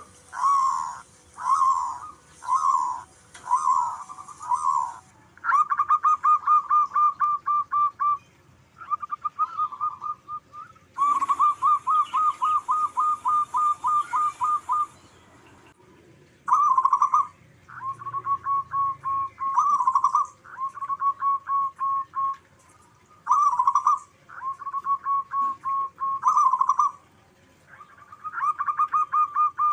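Zebra doves cooing: first a few separate rolling coos about once a second, then repeated bouts of rapid staccato cooing notes, each bout a few seconds long, with short pauses between.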